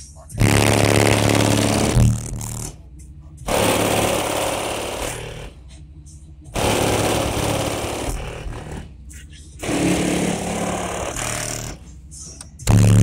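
A rebassed rap song played loud on a car stereo through two subwoofers, heard from outside the car: rapped vocals over heavy bass, in phrases of about two seconds with short drops between.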